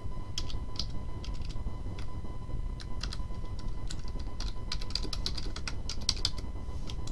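Typing on a computer keyboard: scattered keystrokes, then a quick run of them about four to six seconds in.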